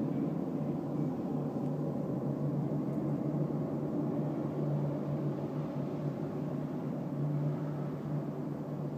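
A steady, distant low roar like a jet engine, with a constant hum underneath and no change in level; its source is unidentified.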